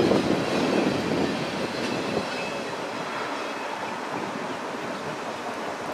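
The last cars of a freight train of empty autorack cars rolling past, their wheel-on-rail noise fading away as the train leaves.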